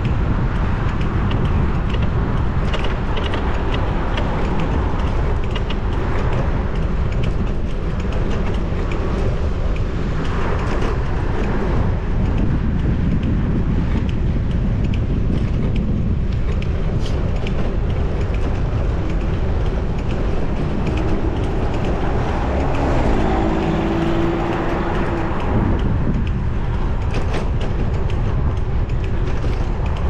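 Strong wind buffeting a GoPro 10's microphone on a moving bicycle: a steady low rumble, with road traffic passing. A brief steady tone sounds about three-quarters of the way through.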